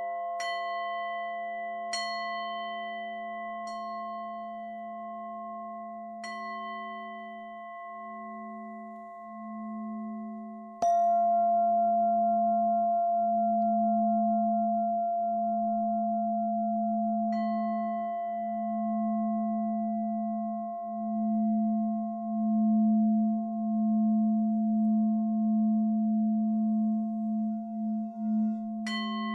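Meditation drone music of layered, steady ringing tones like singing bowls or tuning forks, with a low tone that swells and wavers. Bell-like strikes come at uneven intervals, several in the first few seconds and one about eleven seconds in that brings a sudden jump in loudness.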